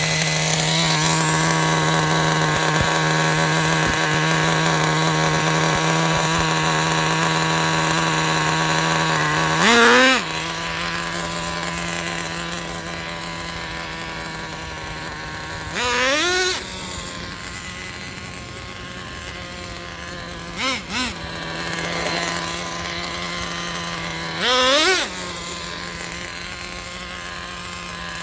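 Traxxas Jato's nitro glow-plug engine idling with a steady high-pitched buzz. It blips the throttle in short revs that rise and fall about ten, sixteen and twenty-five seconds in, with two quick little blips around twenty-one seconds. The engine is being warmed up after an overhaul and a new glow plug.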